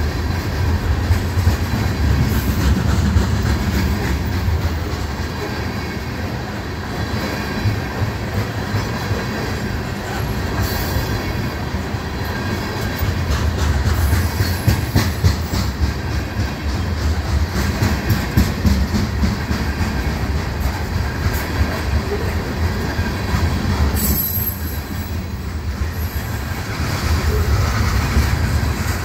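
Loaded freight train of tank cars rolling past close by: a steady low rumble of steel wheels on rail, with a constant run of clicks and clacks as the wheels cross rail joints.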